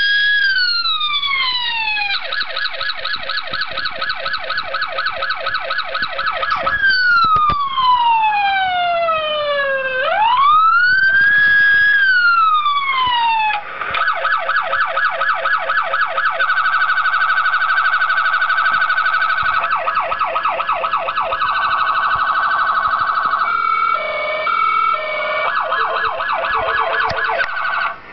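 Electronic police siren from a scale model police car's sound unit, cycling through its patterns: a slow wail that rises and falls, then several long stretches of a very fast yelp, with a short switch to steady alternating tones in the second half. A fresh wail starts rising near the end.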